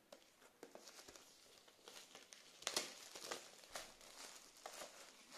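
Faint crinkling and tearing of plastic shrink-wrap being pulled off a steelbook disc case, with scattered small clicks, the sharpest about two and a half seconds in.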